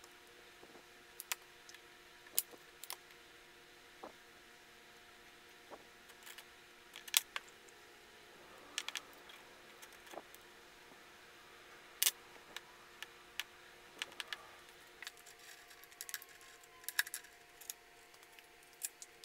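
Scattered light clicks and taps of hand tools on a workbench while a short length of square steel tube is measured with a tape measure and marked with a plastic speed square and marker, then clamped in a small bench vise near the end. A faint steady hum runs underneath.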